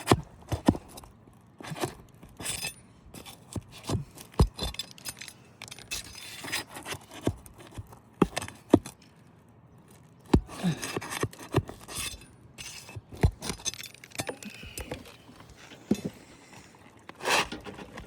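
Metal flat bar and roof snake scraping and clinking against asphalt shingles and roofing nails as the nails are pried loose: an irregular string of sharp clicks and short scrapes.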